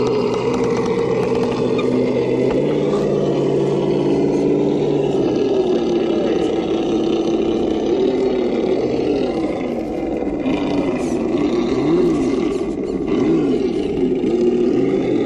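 Traxxas TRX-4 RC crawler's electric motor and geared drivetrain whining under throttle as it crawls, pitch held steady for the first few seconds, then rising and falling repeatedly as the throttle is worked.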